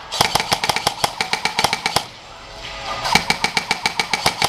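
Airsoft guns firing in rapid strings of sharp cracks, about eight shots a second, with a short break about two seconds in before the firing resumes.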